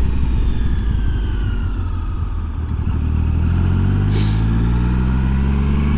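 Triumph Sprint GT 1050's inline three-cylinder engine on the move, a raspy triple. It eases off with a falling note for the first couple of seconds, then pulls again with a steadily rising note.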